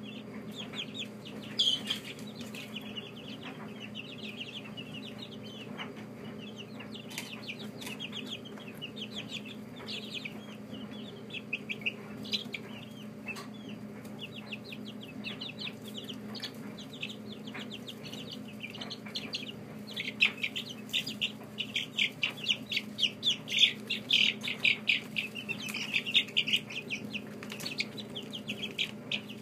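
A group of young chicks peeping: many short, high cheeps overlapping, growing denser and louder about twenty seconds in. A steady low hum runs underneath.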